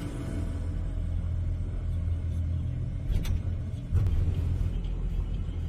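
Low, steady rumble of a motor vehicle driving on the road, with a short click about three seconds in and a bump in level a second later.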